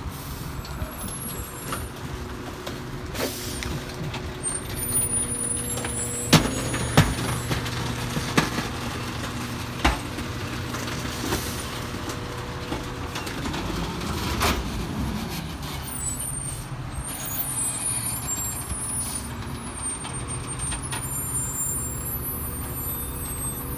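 Sterling LT7500 rear-loader garbage truck running steadily at the curb, with sharp metallic knocks from the Heil PakMor hopper as trash is loaded. A rising-and-falling engine or hydraulic note comes about halfway through.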